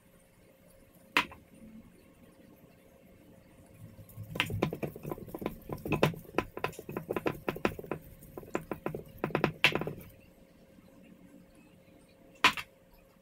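A gloved hand tossing raw beef chunks in a glass baking dish to work in the seasoning: a run of irregular wet squelches and light knocks against the glass lasting about six seconds. There is a single sharp tap about a second in and another near the end.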